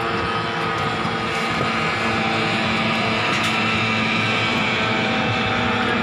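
Boat outboard motor running steadily under way. A higher whine swells and fades in the middle, over a haze of wind and water noise.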